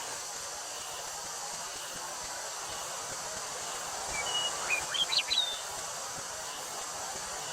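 Steady high drone of summer cicadas over wind noise, with a short run of bird chirps, several quick notes, about four to five and a half seconds in.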